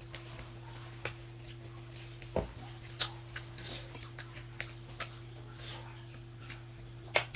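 Quiet eating sounds: scattered small clicks and smacks of chewing momos and of utensils touching the plate, irregular and a few a second, over a low steady hum.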